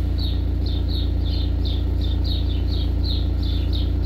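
VW Caddy's engine idling steadily, heard from inside the cabin, with a bird chirping repeatedly outside: short falling chirps, about three a second.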